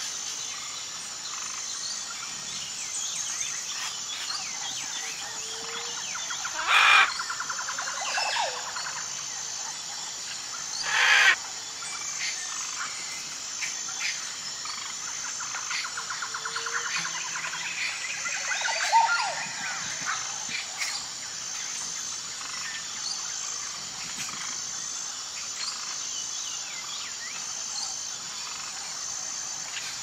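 Cockatoos calling: two short, loud screeches about seven and eleven seconds in, and another harsher call a little after halfway. Under them runs a steady, pulsing high chirping with scattered small bird twitters.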